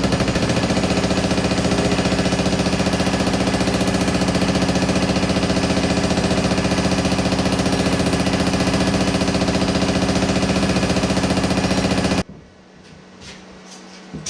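Power hammer pounding a sheet-metal panel with rapid, even strikes, then stopping abruptly about 12 seconds in, leaving only the machine's low hum.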